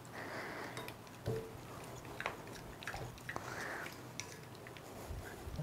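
Fork stirring a wet mix of beaten eggs, curd and milk in a glass bowl as milk is poured in: quiet squelching and sloshing, with a few light clicks of the fork against the glass.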